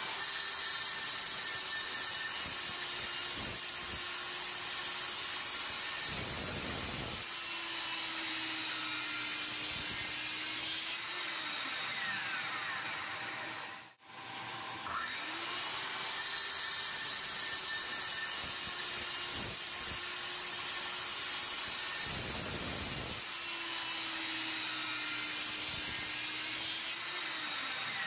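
Takagi DM-110 165 mm circular saw spinning up, making a short cut through a pallet board about six seconds in, then winding down with a falling whine. A steady hiss of dust-collection suction runs through the hose on the saw's dust duct throughout. The whole sequence then repeats almost identically.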